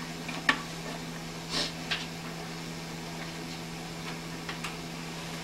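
Steady low machine hum, with a few faint taps and rustles in the first two seconds as a plastic protractor template is moved on paper.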